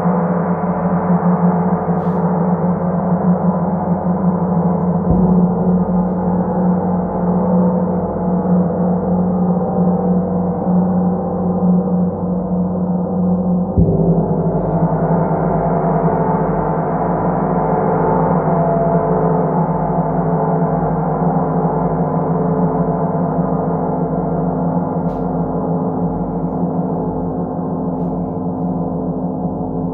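Large hammered gong played with a soft felt mallet: a continuous ringing wash of many overtones, renewed by a soft strike about five seconds in and again about fourteen seconds in, then slowly fading near the end.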